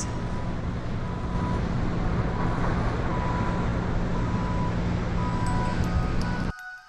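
Heavy vehicle or machinery engine running with a steady low rumble, a faint high tone coming and going over it; it cuts off suddenly near the end as light chiming music starts.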